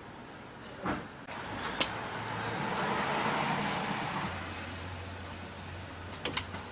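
A vehicle passing: a rush of noise that swells and fades over about three seconds, followed by a low steady hum, with a few sharp clicks about a second in, two seconds in and near the end.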